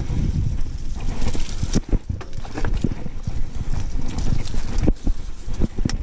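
A TSW Jump mountain bike rolling over a rocky singletrack: irregular knocks and clatter as the tyres strike stones and the bike rattles, over a steady low rumble.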